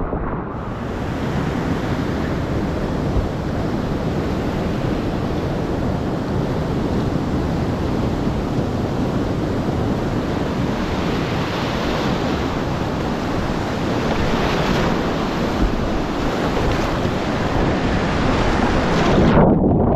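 Whitewater rapids rushing steadily and loudly close to the microphone, with water and wind buffeting it. Near the end the hiss drops away abruptly, leaving a low rumble.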